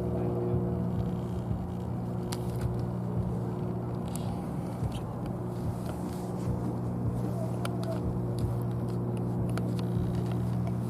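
A motor engine drones steadily at one unchanging pitch, with a few faint sharp clicks scattered over it.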